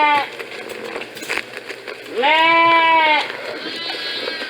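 Sheep bleating. One bleat ends just after the start, a long, loud bleat comes a little after two seconds in and lasts about a second, and a fainter bleat follows near the end.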